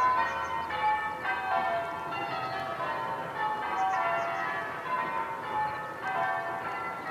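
Church bells rung in changes: a peal of bells struck one after another in a steady rhythm, their tones overlapping.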